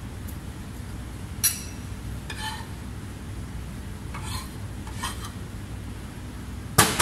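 Kitchen utensils clinking and scraping against dishes, a few separate light clinks and a sharper, louder one near the end, over a steady low hum.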